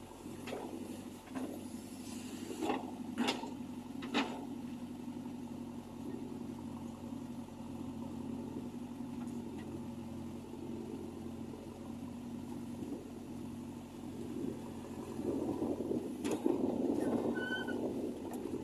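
JCB 3DX backhoe loader's diesel engine running steadily while working, with a few sharp knocks in the first few seconds. The engine grows louder toward the end.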